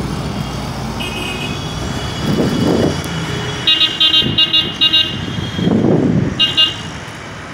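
Vehicle horn sounding in street traffic: a short held note about a second in, then a quick run of about six short toots, and two more near the end. Two broader swells of engine noise rise and fall between them over the steady traffic rumble.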